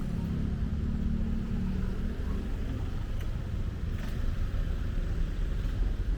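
Street traffic: a car engine hums close by for the first couple of seconds, over a steady low rumble of passing vehicles.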